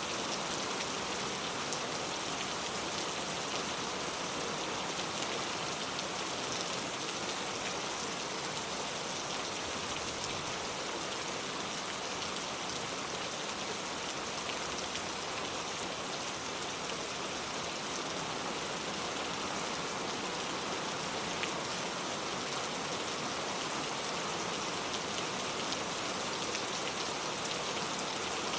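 Steady rain falling, an even patter with faint scattered drop ticks and no change throughout.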